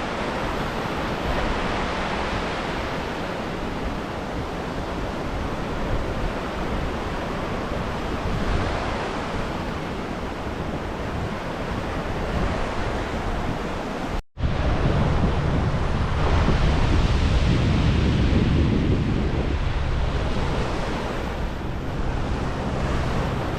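Sea waves washing in, with wind buffeting the microphone. The sound cuts out for an instant about fourteen seconds in, and after that the low wind rumble is heavier.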